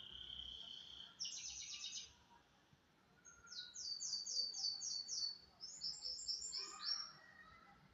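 Domestic canary singing: a held whistled note, then a fast rattling trill, a short pause, then a run of quick falling whistled notes and another rolling trill near the end.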